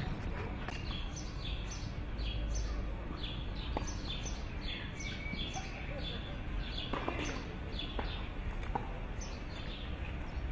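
Small birds chirping over and over in short, high, downward-sliding notes, over a steady low rumble.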